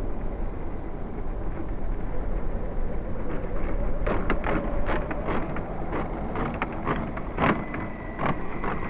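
1/8-scale HobbyKing HKM-390 brushless electric RC motorcycles running laps on a tarmac track, heard as a steady noisy run over a low rumble. A series of sharp clicks and knocks comes from about halfway through to near the end.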